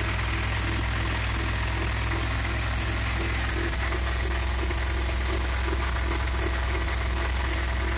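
1969 Dodge A100 van's 318 V8 running steadily at idle, still warming up after a cold start.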